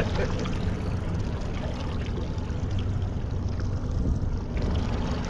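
Boat engine running steadily, a low even hum, with the rush of water around the hull.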